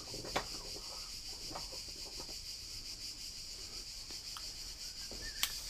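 A few soft clicks and knocks of a connector pin in a wooden block being clamped in a bench vise, over a steady faint high-pitched hiss; a sharper click comes near the end.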